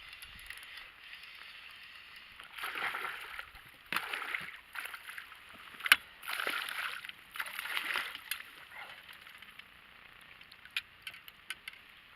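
Water splashing and sloshing in several short bursts as a hooked small pike thrashes at the surface beside an inflatable boat, with one sharp knock about six seconds in.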